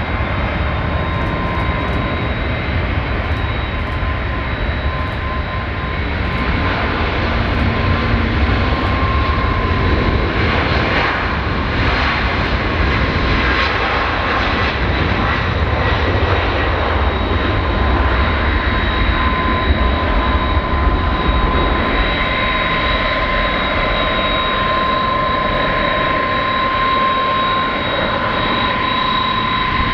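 Airbus A310-304 MRTT's twin General Electric CF6-80C2 turbofans at takeoff power through the takeoff roll and climb-out: a steady, loud roar with a constant high whine running through it.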